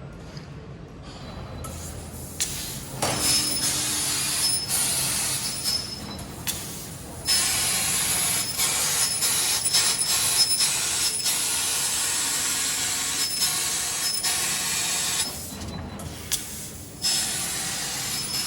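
A machine running with a steady hiss, many short clicks, and a high thin whine that starts and stops in short dashes; it drops back to a quieter hiss a few times.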